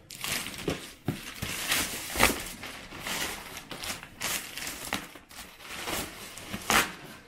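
Packaging being handled by hand: irregular bursts of crinkling and rustling, with two sharper knocks, one about two seconds in and one near the end.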